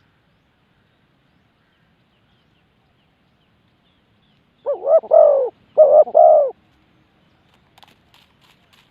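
Spotted dove cooing: two short two-note phrases about a second apart, midway through, with faint light ticks near the end.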